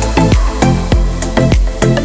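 Electronic dance music with a steady beat of about four strikes a second over deep bass.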